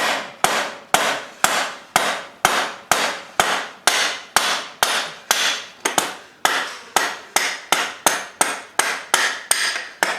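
Hammer blows in a steady, even series, about two to three a second, each with a short ring, knocking at a part that is stuck really tight on the motocross bike's rear wheel.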